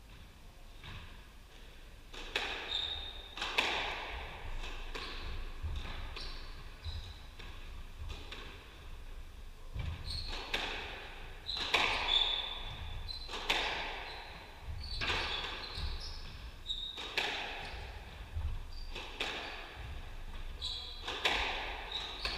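A squash rally: the ball is struck by rackets and smacks off the walls and floor, sharp hits often in pairs every second or so, each ringing in the enclosed court. Short high squeaks of shoes on the wooden court floor come between the hits. The rally starts about two seconds in.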